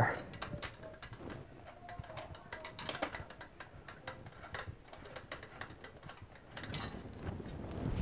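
Scythe Mugen 5 cooler's mounting screw and long-shafted screwdriver working against the metal mounting bracket: a run of faint, irregular small clicks and scrapes as the screw is fished into its hole and started.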